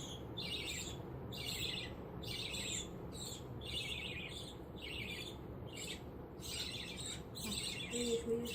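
Budgerigar chick giving repeated high begging chirps, about two a second, while being hand-fed.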